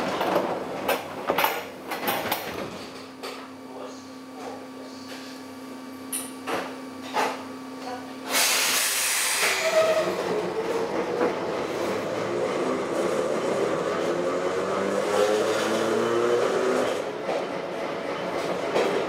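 Inside an Ohmi Railway electric railcar (Moha 224): a few clicks and knocks and a steady hum at standstill, then a sharp burst of air hiss about eight seconds in as the brakes release. After that the car pulls away, its motors whining and rising slowly in pitch as it gathers speed.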